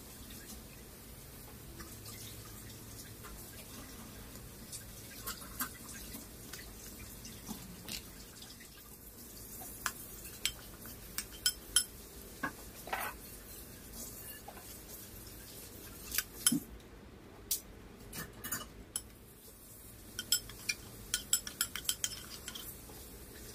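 Metal spoon clinking and scraping against a ceramic bowl of blended spice paste, with light taps against a stainless steel bowl of fish: scattered short clinks, more frequent in the second half, over a low steady hiss.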